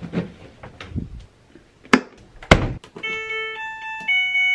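Clothes being stuffed into a Maytag Bravos XL top-load washer, two thunks as the lid goes down (the second louder), then the washer's control panel beeping a short three-note electronic chime as its buttons are pressed, the last note held.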